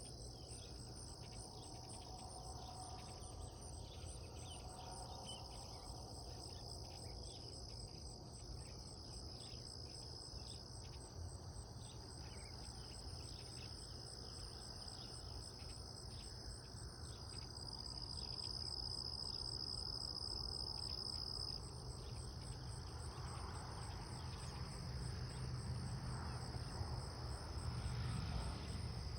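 Steady chorus of insects trilling: a continuous high drone with a fast, even pulsing above it, over a low steady rumble.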